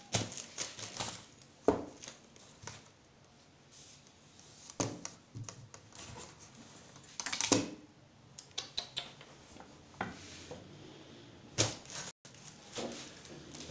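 Hands handling a cardboard parcel box and small objects on a desk: scattered taps, clicks and rustles, with sharper knocks about two seconds in, about seven and a half seconds in and about twelve seconds in.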